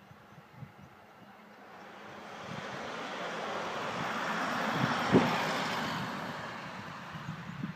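A train running past, heard as a rush of noise that builds, peaks about five seconds in with a sharp knock, and fades away, with low irregular thuds of wheels on the rails.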